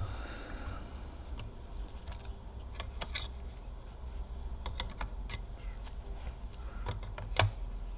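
Scattered small clicks and taps of hands and tools handling the plastic parts of an opened laptop, over a low steady hum; the loudest click comes near the end.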